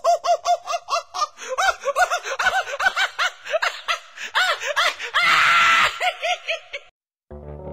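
A person laughing in a fast, high-pitched run of 'ha' syllables, with a louder shriek about five seconds in. The laughter cuts off near the end and music begins.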